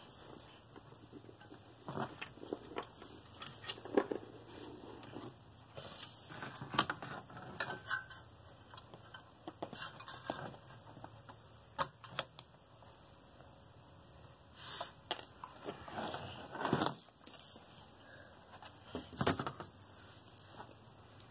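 Scattered clicks, taps and light metallic clatter from handling a tower CPU cooler's finned heatsink and its mounting parts on a motherboard, with a few short scraping rubs.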